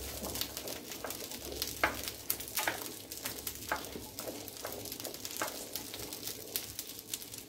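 Fresh fava beans frying in a clay cazuela, sizzling with many small crackles and pops, as a wooden spoon stirs them through the pan.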